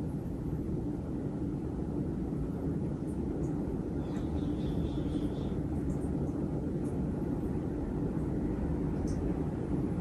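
A 50-inch Casablanca Delta II ceiling fan with four blades, running steadily and giving a low, even whoosh of moving air. Its motor runs on new bearings.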